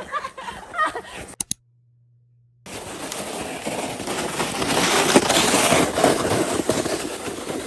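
Plastic saucer sled sliding down a packed snow slope: a rough, crackling scrape over the snow that builds to its loudest about halfway through. It opens with a short burst of laughter, then a second of silence before the ride starts.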